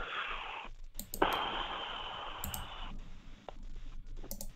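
A handful of sharp computer clicks, a small cluster about a second in, one about halfway and another cluster near the end, over two stretches of hiss carried through a phone line.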